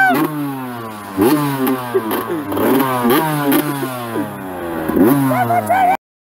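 Honda CR two-stroke dirt bike engine being revved, the throttle blipped about four times with the revs sliding back down after each. The sound cuts off suddenly near the end.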